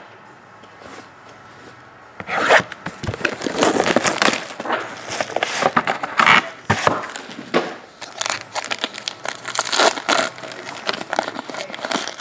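A trading-card pack wrapper being torn open and crinkled by hand, a quick run of crackles and rips that starts about two seconds in.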